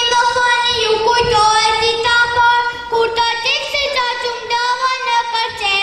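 Children's choir singing a song in long, held notes, the melody stepping from note to note every second or so.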